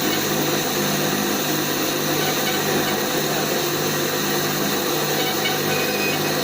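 A machine running steadily, a constant motor hum with a whir over it that does not change.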